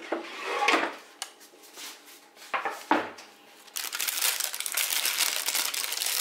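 Baking parchment crinkling and rustling as hands grab it and lift a freshly baked loaf out of a cast-iron pot: two short rustles, then a dense, continuous crinkle from about four seconds in as the paper is pulled up.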